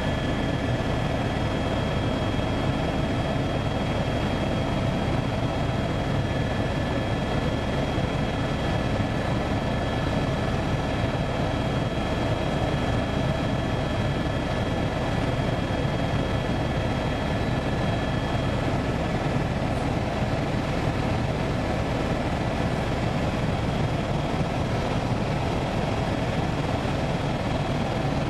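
Helicopter engine and rotor noise heard from inside the cabin, a steady drone throughout. A thin high whine runs over it and stops about two-thirds of the way through.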